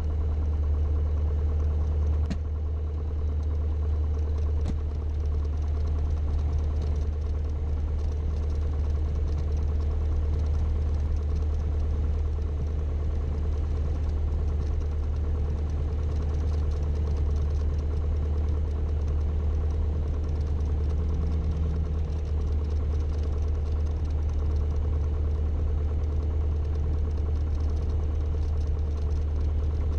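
Light aircraft's piston engine and propeller running steadily at low taxi power, heard from inside the cockpit. Two faint clicks come about two and five seconds in.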